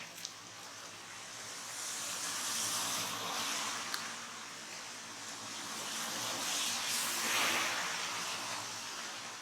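Hiss of heavy rain, swelling louder twice, a few seconds in and again near the end, with a small tick about four seconds in.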